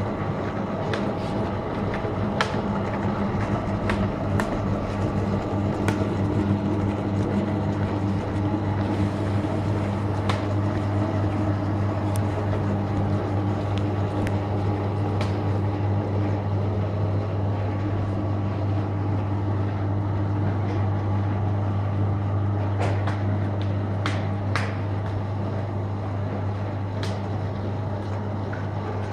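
Automatic sticker-labelling machine running: a steady motor hum with sharp, irregular clicks from its mechanism.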